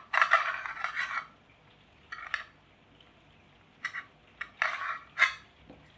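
Hard plastic parts of a portable power bank scraping and clicking as the battery-and-board assembly is pushed against its casing while being fitted back in. A scrape of about a second comes first, then shorter scrapes and a sharp click near the end.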